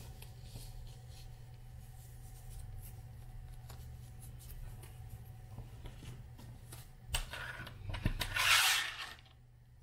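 Faint rustling and rubbing as a Velcro strip is handled against a sandal strap, with a louder scratchy rasp near the end. A steady low hum runs underneath.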